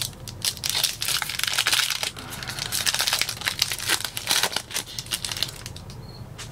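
Foil wrapper of a Panini NBA Hoops trading-card pack crinkling and crackling in the hands as it is torn open at the crimped top. The crinkling dies away near the end as the cards come out.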